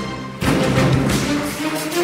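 Ceremony walk-on music, which comes in strongly about half a second in.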